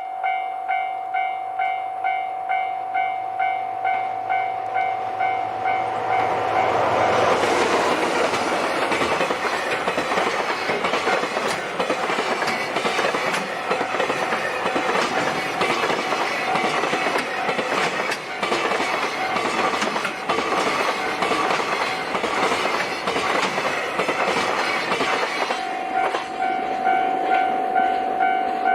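Railway level-crossing warning bell ringing in a steady repeated ding. About seven seconds in, a diesel train runs over the crossing. Its wheel rumble and clickety-clack over the rail joints cover the bell for some twenty seconds, and the bell is heard again near the end.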